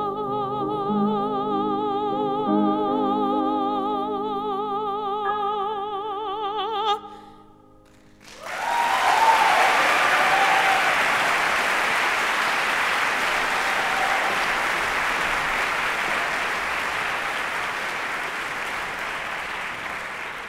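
A soprano holds a long final note with wide vibrato over piano chords, cutting off about seven seconds in. After a brief pause an audience breaks into sustained applause.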